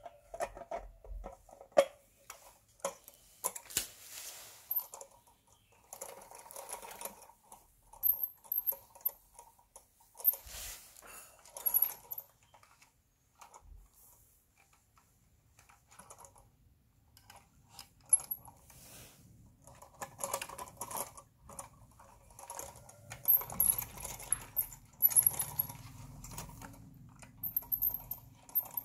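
Handling noises of a die-cast Scania 4-series container truck model: the plastic container is fitted onto the trailer frame and the model is moved about, giving scattered clicks, taps and small rattles, with a faint low rumble in the second half.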